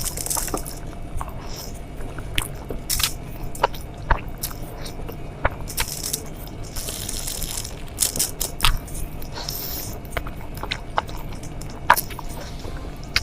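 Close-miked eating: irregular crunchy bites and chewing, with sharp crackles scattered throughout.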